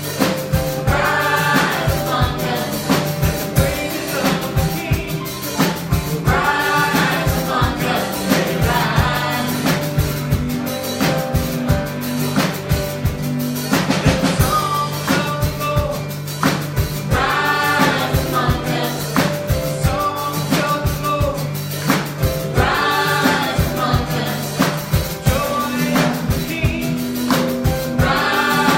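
Live gospel worship music: singers over a band with bass and a drum kit keeping a steady beat.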